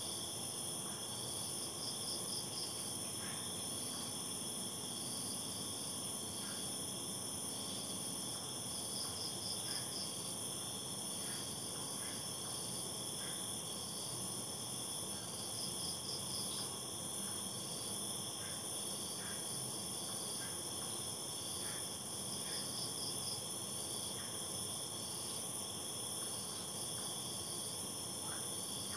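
Night insects chorusing: several steady high-pitched trills run on unbroken, with a short pulsed chirp repeating about every seven seconds.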